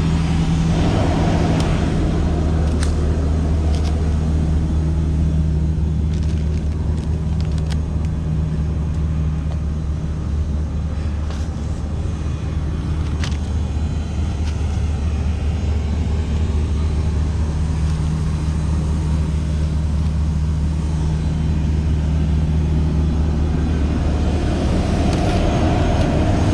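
Isuzu cab-over Nitehawk sweeper truck running steadily while sweeping, a loud low engine drone with occasional sharp clicks. The drone dips slightly midway and swells again near the end.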